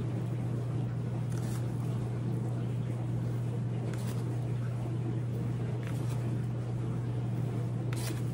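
A steady low hum under a faint hiss, with a few faint ticks as dried minced onion is shaken from a plastic spice jar into a measuring spoon.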